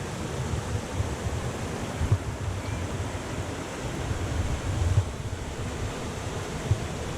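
Steady rushing of falling water, with wind buffeting the microphone in uneven low rumbles.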